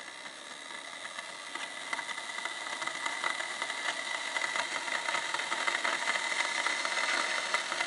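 220 V electric coolant preheater heating antifreeze like a kettle: a steady hiss with fine, dense crackling that grows louder over the first couple of seconds.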